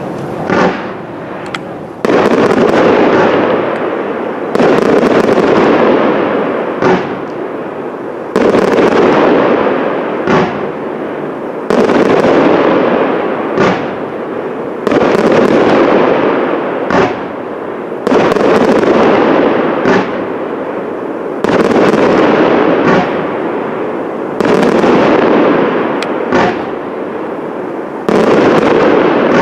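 Display firework shells bursting one after another, a loud burst about every three seconds, each starting suddenly and trailing off over a couple of seconds. Single short, sharp cracks fall in between.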